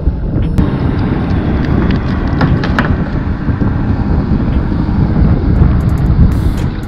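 Wind buffeting the microphone: a loud, uneven low rumble, with a few faint knocks.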